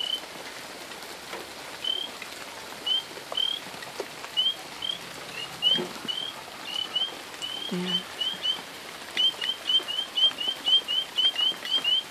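Frogs calling in the rain: a chorus of short, high, upslurred peeps, scattered at first and coming about three a second in the second half, over a faint hiss of rain.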